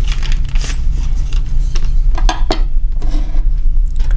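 A few light clicks and knocks of hard objects handled on a desk, two close together about two seconds in and another near the end, over a steady low hum.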